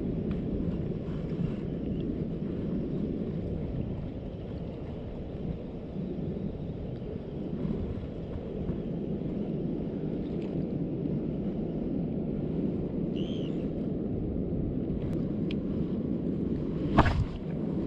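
Steady low rumble of wind buffeting the microphone outdoors. A short high chirp comes about thirteen seconds in, and a sharp knock near the end.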